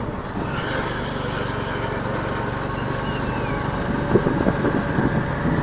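Tuk-tuk (auto rickshaw) engine running steadily as it drives along, heard from inside the open cab.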